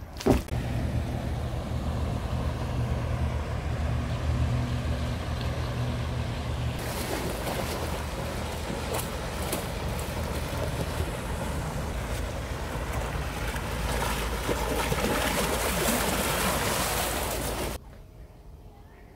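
Motor cruiser's engine running steadily as it travels along the river, a low even hum with a broad hiss laid over it from about a third of the way in. The sound cuts off sharply about a second before the end.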